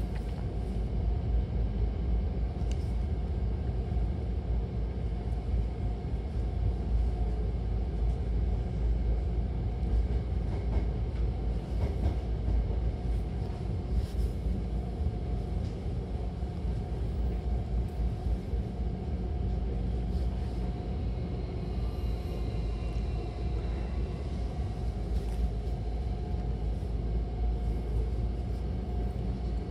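Hankyu Takarazuka Line electric train running at speed, heard from inside the car: a steady rumble of wheels on rail with a constant low hum. Faint high tones come in and fade out around the middle, and there are a few brief clicks.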